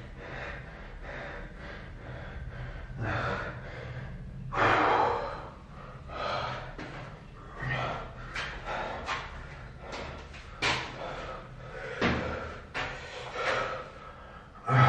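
A man breathing hard and gasping through a set of burpees, about one breath a second, with a few thumps of his body landing on the floor.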